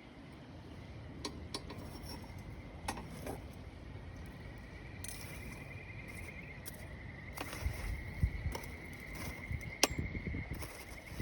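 Campfire of embers and firewood crackling, with sharp pops a few seconds apart. From about halfway, a thin, high, pulsing trill joins it and stops shortly before the end.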